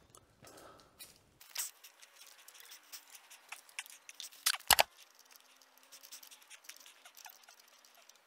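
Faint metal clicks and taps from an open-end wrench as pedals are threaded onto an e-bike's crank arms, with one sharp, louder click about halfway through.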